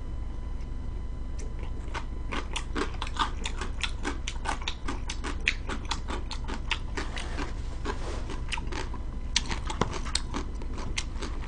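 A person chewing a mouthful of crunchy vegetable salad and pickled radish close to the microphone: many quick, irregular crisp crunches and mouth clicks over a steady low hum.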